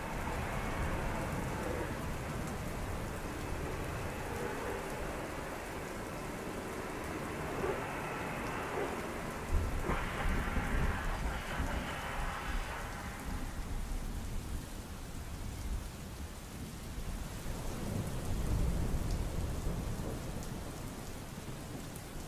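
Heavy rain falling steadily, with low rumbles of thunder about ten seconds in and again near the end.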